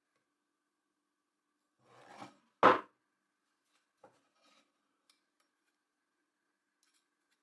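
A steel guide rod rubs and scrapes briefly against a wooden tabletop, then knocks down on it with one sharp clunk. A few faint light clicks follow.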